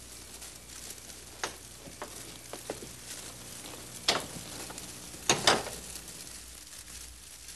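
Steady hiss of an old television soundtrack with a few scattered soft knocks and clicks; the loudest come about four seconds in and as a close pair about five and a half seconds in.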